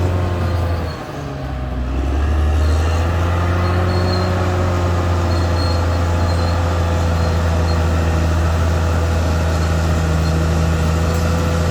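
Caterpillar D6R XL bulldozer's diesel engine running under work; its note drops briefly about a second in, then comes back up and holds steady.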